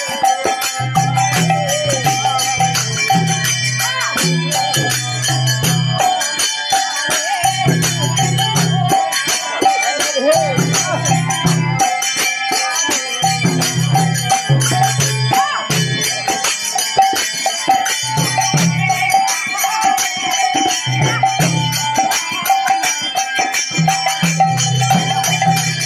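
Devotional kirtan music: hand-played mridanga barrel drums and a harmonium's steady reedy chords, with kartal hand cymbals jingling over them.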